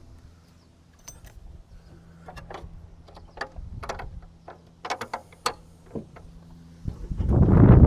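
Scattered metal clicks and taps of wrench work on the fuel line fittings over a steady low hum, then about seven seconds in a loud rough noise starts: the starter cranking the Yanmar three-cylinder diesel to bleed air from the cracked fuel lines.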